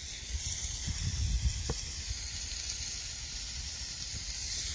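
Burger patties sizzling steadily on a hot Blackstone flat-top griddle.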